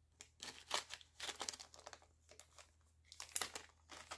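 Small plastic zip-lock bags of metal findings crinkling as they are handled, in irregular short bursts, the loudest a little over three seconds in.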